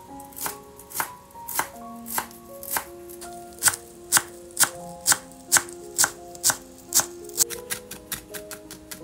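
Knife chopping food in steady strokes, about two a second, speeding up near the end, over soft melodic background music.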